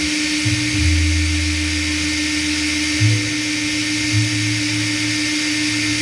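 A small power tool running steadily at constant speed, with a high whine and hiss, as in sanding or wire-brushing metal.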